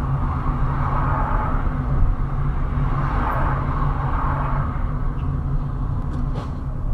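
Car driving at steady speed, heard from inside the cabin: a steady low engine hum and road rumble, with a few faint clicks near the end.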